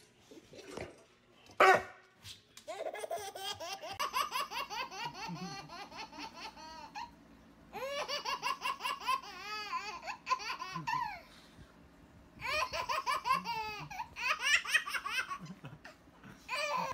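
A baby laughing hard in three long runs of quick, pulsing belly laughs, with a sharp knock shortly before the first run.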